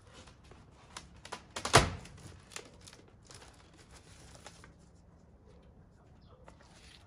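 Washing machine packaging being torn and crumpled by hand in irregular rustling bursts, with a few short clicks and one sharp knock a little under two seconds in, the loudest sound.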